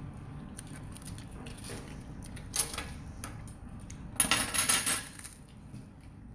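Cutlery clinking against dishes while eating: one sharp clink a couple of seconds in, then a quick run of clinks and scrapes a little over a second later.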